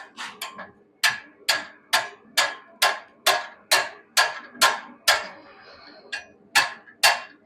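Hand hammer striking hot wrought iron on an anvil with ringing metallic blows. A steady run of about ten blows at a little over two a second, a short pause, then several more.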